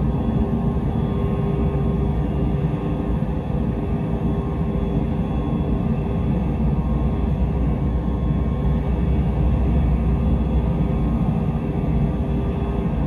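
Steady low rumbling drone with a faint constant hum on top, unchanging throughout: an ambience sound effect.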